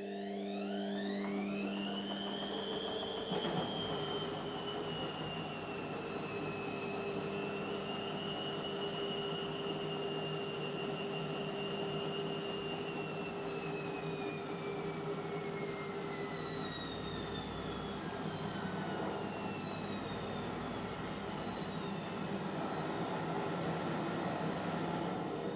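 Indesit washing machine spinning: the motor and drum whine rises quickly at the start, holds steady, then slowly drops in pitch as the spin eases off, over a steady low hum.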